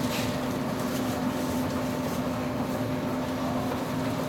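Stockholm Metro C14 train standing at a platform, its onboard equipment giving a steady hum with a constant low drone and a few fainter steady tones. A few faint clicks sound over it.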